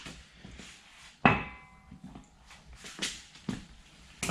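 A single metallic clank about a second in, with a short ring after it, then a few faint knocks, typical of metal parts being handled or set down in a workshop.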